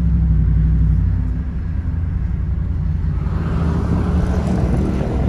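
Steady low engine and road drone of a four-wheel drive heard from inside its cabin while driving. About three seconds in, a hiss of tyre and wind noise grows louder over the drone.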